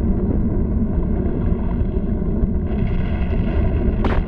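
Cartoon sound effect of a volcano erupting: a steady, loud low rumble, with a sharp crack near the end.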